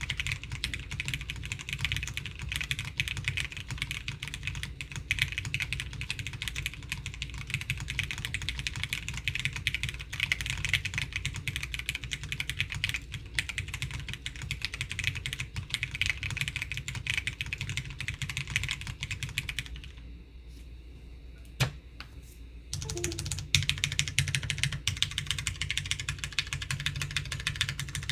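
Continuous typing on a mechanical keyboard: a Qwertice R2 with a polypropylene plate, lubed Hyperglide MX Brown switches and Shenpo 1953 dye-sub keycaps. It is a dense run of keystroke clacks. About two-thirds of the way through, the typing stops for roughly three seconds with a single key click in the gap, then carries on.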